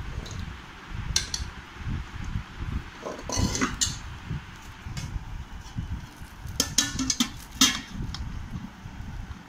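A few sharp clinks and knocks of a utensil and hand against a stainless steel plate, the loudest in a cluster near the end, over a steady low rumble.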